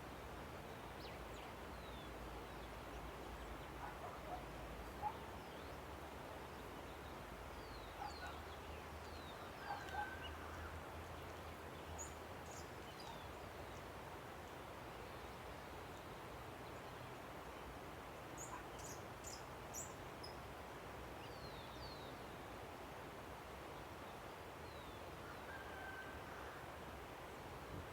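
A river's steady rushing with scattered bird calls over it: short high chirps and a few brief clearer notes, the loudest about 5 and 10 seconds in.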